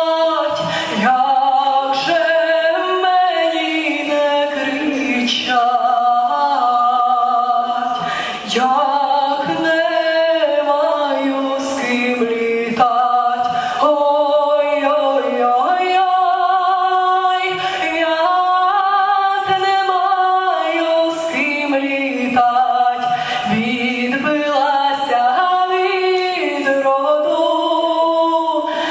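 A woman singing a Ukrainian folk song a cappella, solo into a microphone, with long held notes and no accompaniment.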